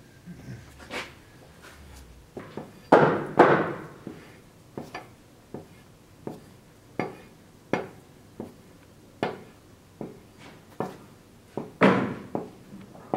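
Wooden axe handle being knocked down into the eye of a steel axe head held in a vise, to fit it: a series of sharp wooden knocks, a bit more than one a second, with two louder blows about three seconds in and another near the end.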